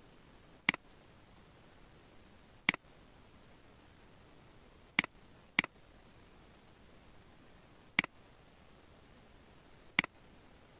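Computer mouse button clicking six times at uneven intervals, two of the clicks close together near the middle, over a faint steady hiss.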